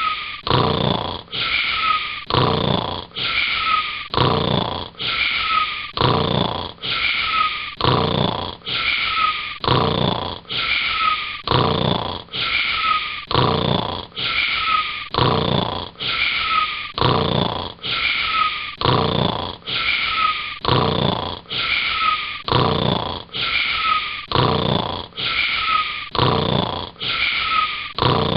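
Cartoon-style snoring: the same short snore repeats evenly about once a second, like a looped sound.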